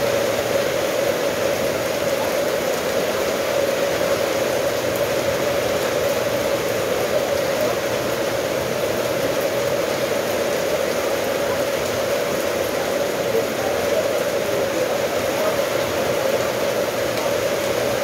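Steady rain falling, an even, unbroken wash of noise that holds the same level throughout.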